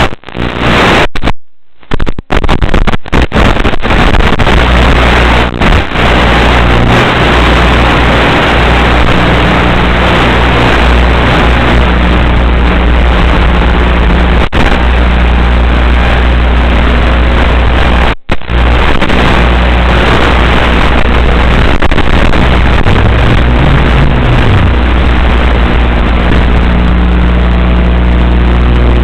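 Loud steady hiss with a low hum on the audio of a drone's 5.8 GHz analog FPV video link in flight. It cuts out briefly several times in the first few seconds and once near the middle.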